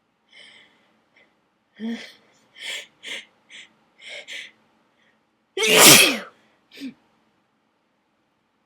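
A person sneezing during a dust-triggered sneezing fit. Several short breathy catches lead up to one loud sneeze about six seconds in.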